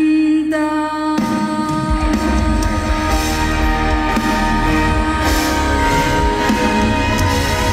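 Live concert music from a stadium sound system: a female singer holds a long note, then the full band comes in about a second in with drums and bass.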